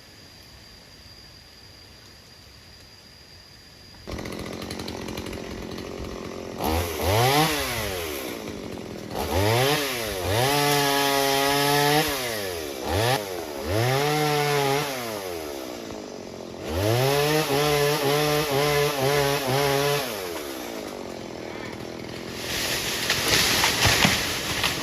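A chainsaw engine comes in about four seconds in, idling, then is revved up sharply and held at high speed for a second or more, again and again, dropping back to idle between.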